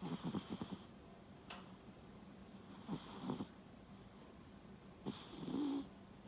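Domestic cat snoring in its sleep: three fluttering snore breaths about two and a half seconds apart. A vet took the snoring for a sign of small nostrils, and the cat is otherwise healthy.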